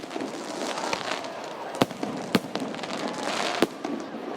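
Fireworks display: aerial shells bursting with sharp bangs, one right at the start and three more about two, two and a half and three and a half seconds in, over continuous background noise.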